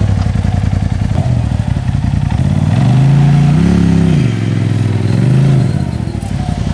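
Side-by-side UTV engine being throttled on a rock climb, with two surges where the revs rise and fall, a longer one about three seconds in and a shorter one about five seconds in.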